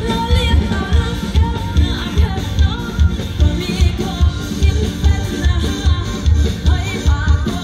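Amplified live band: a woman sings a melody into a microphone over electric guitars, bass guitar and a steady drum beat with a heavy kick drum.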